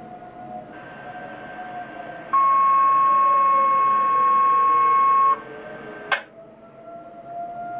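Weather radio receiver sounding a steady, loud electronic alert tone for about three seconds over radio hiss, cut off by a click. Behind it an outdoor tornado warning siren wails on the attack signal, its pitch slowly falling and then coming back up near the end.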